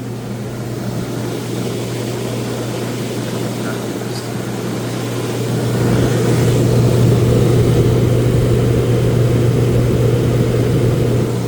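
An engine running with a steady low drone, getting louder about five seconds in.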